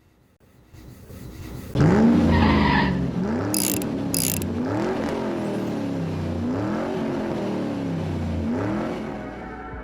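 Car engine revved repeatedly, its pitch rising and falling about five times, starting suddenly a couple of seconds in, with two short hissing bursts early on.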